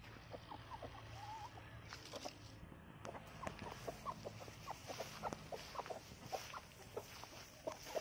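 Aseel chickens clucking: a quick run of short, separate clucks. The clucks get busier and louder from about three seconds in.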